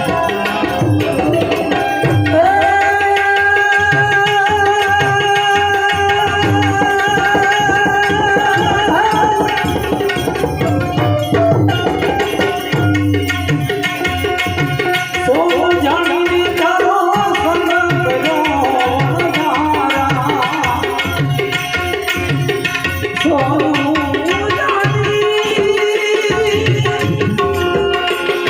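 Instrumental interlude of a Gujarati santvani devotional song: a steady tabla rhythm under a melody instrument playing long held and wavering notes.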